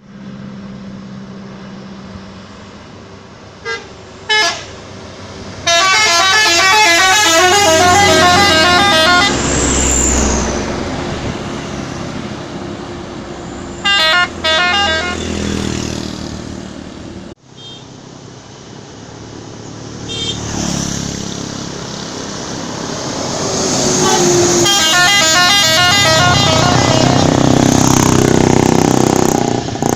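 A bus's telolet horn, a multi-tone air horn playing its quick alternating-note tune: two short toots, then a long run of the melody lasting several seconds, a brief burst later on, and a second long run near the end, over the low rumble of the bus engine.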